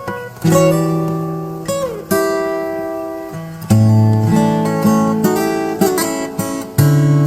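Acoustic guitar playing, with chords strummed every second or two and single notes picked between them. Each chord rings out and fades, and one note slides downward partway through.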